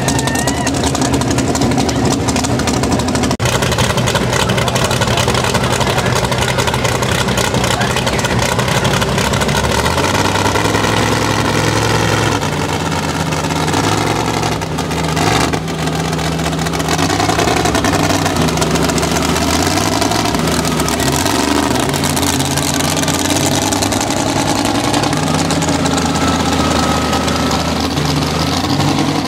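Big-engined mega mud trucks running hard under load in a truck tug of war. About ten seconds in, the engine note starts rising and falling over and over as the drivers work the throttle.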